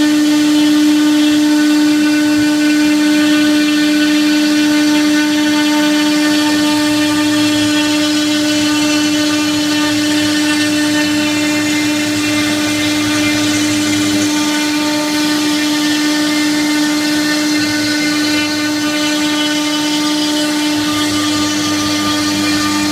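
CNC router spindle milling laminated chipboard, running with a steady whine that holds one pitch throughout, under a lower rumble of the cut that comes and goes.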